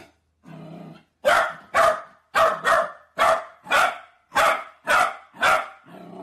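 Corgi puppy barking repeatedly: a short low growl, then about nine sharp, high barks roughly half a second apart.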